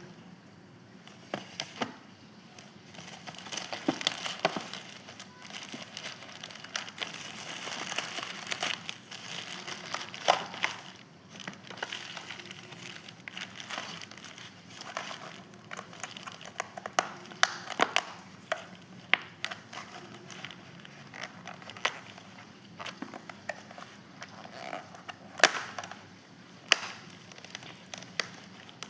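Hands opening a parcel's packaging close to the microphone: crinkling and crumpling for several seconds, then scattered sharp taps and clicks as it is handled.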